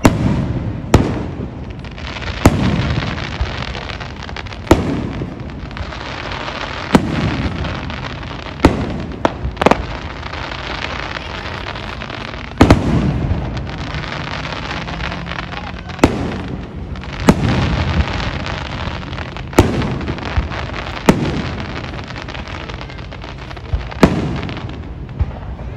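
Aerial fireworks shells bursting overhead, a sharp bang every second or two, each trailing off into a rumbling echo, with steady crackling from glittering shells in between.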